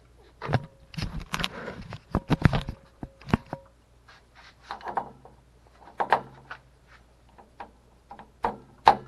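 Metal clanks and clicks as an element wrench, levered with a screwdriver, shifts and knocks against a water heater's heating element while it is strained against an element that is seized with rust. A cluster of knocks in the first few seconds carries a faint metallic ring, then scattered knocks follow, the loudest near the end.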